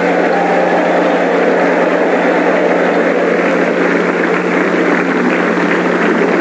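Studio audience applauding a game-winning answer, steady throughout, over a constant low hum in the old recording.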